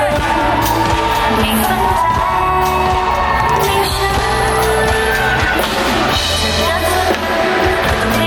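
A pop song performed live: a woman singing over a loud backing track with sustained bass notes, played through a concert sound system.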